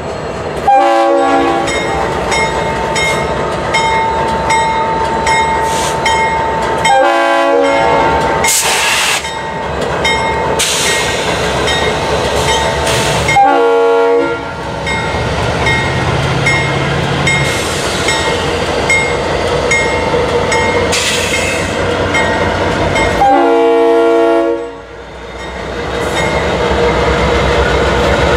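Locomotive air horn sounding a chord in four separate blasts, the last one longer, over the steady rumble and rattle of a passing train.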